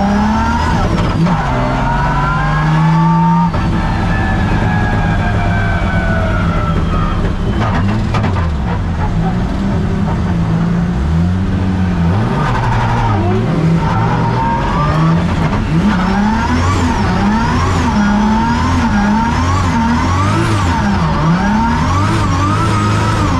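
Toyota Vios race car's 1.5-litre 1NZ four-cylinder engine at racing speed. The revs climb, then fall away for several seconds, then rise and drop again and again in quick succession through the second half.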